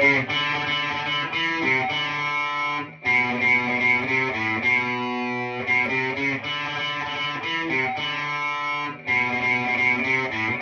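Fender Vintera '70s Telecaster Custom electric guitar playing a riff of strummed chords, changing chord every half second or so, with short breaks about three and nine seconds in.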